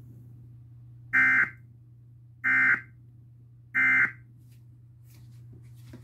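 Emergency Alert System end-of-message data bursts: three short, identical digital warbling chirps about a second and a half apart, the coded 'end of message' that closes a broadcast weather warning, played through a TV speaker.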